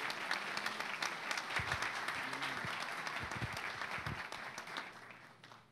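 Audience applauding in a hall, a dense patter of many hands clapping that thins and dies away near the end.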